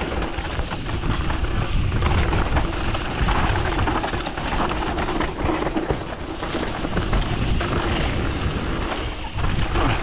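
Mountain bike riding fast down a dry dirt trail, heard from a camera on the bike: wind rushing over the microphone, tyres running over loose dirt and leaves, and steady rattling and knocking from the bike over bumps.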